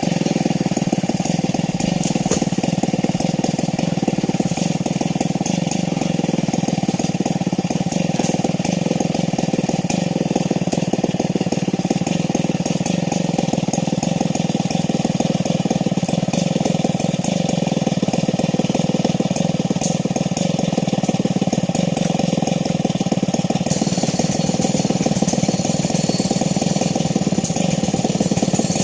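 STIHL 070 two-stroke chainsaw idling steadily between cuts.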